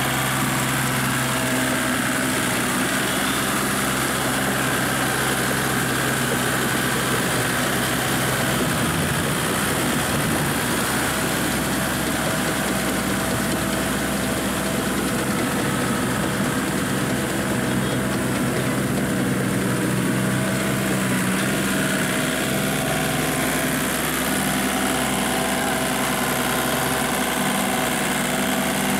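Small Kubota compact tractor's diesel engine running steadily under load as it pulls a tillage implement through flooded paddy mud. The engine note shifts slightly about nine seconds in.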